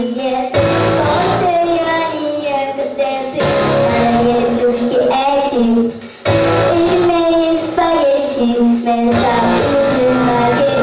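A solo young female voice singing a melody with held, wavering notes over a backing track.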